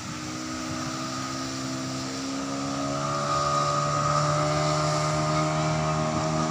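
Motorboat engine running as a speedboat passes, with a steady hum that grows louder about three seconds in.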